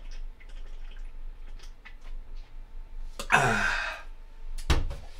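Scattered light clicks, then a loud breathy sigh with a falling voice about three seconds in, and a sharp knock near the end.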